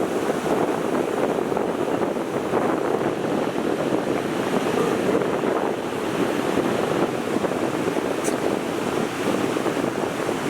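Storm surf breaking in a steady wash, with strong wind buffeting the microphone.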